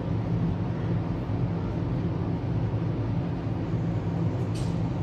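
Steady low hum with a faint hiss over it: background room noise, such as an air conditioner or fan. A faint light tick sounds about four and a half seconds in.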